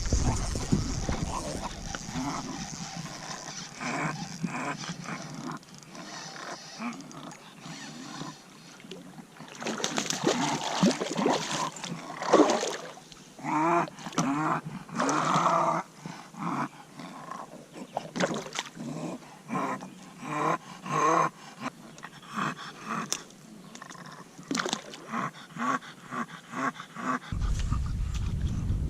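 A bulldog growling and grunting in many short, irregular bursts, each call a second or less and bending in pitch.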